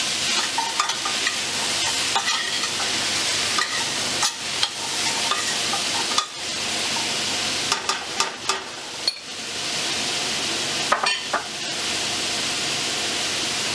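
Diced celery, carrot and onion sizzling steadily in hot oil in a stainless steel pot, stirred with a spoon that knocks against the pot now and then. The stirring stops near the end while the sizzling goes on.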